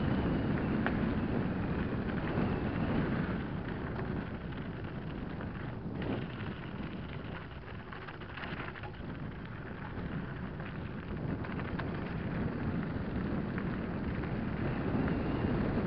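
Mountain bike tyres rolling fast over a loose gravel track: a steady crunching rush with a patter of small stones and a rattling bike. It eases off in the middle and picks up again near the end.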